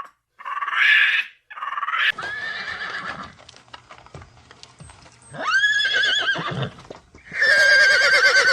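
Horse whinnying: about four neighs, each with a quavering pitch, with faint knocks between them.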